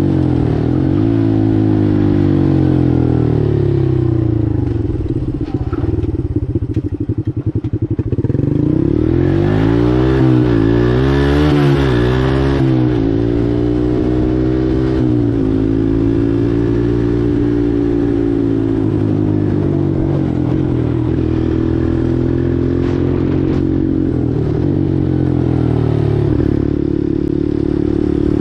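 Four-wheeler (ATV) engine running while riding, its pitch rising and falling with the throttle. It drops to a slow, low note for a few seconds about five seconds in, then revs back up.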